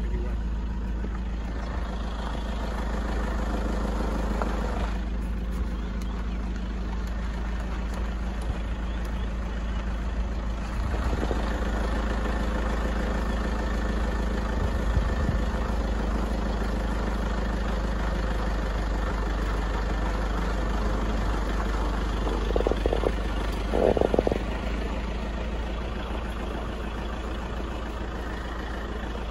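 Safari game-drive vehicle's engine idling and running slowly, a steady low hum, with two brief louder sounds near the end.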